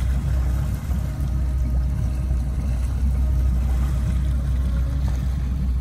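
Motorboat engine running steadily with a low rumble, over the churn of propeller wash in the wake behind the stern.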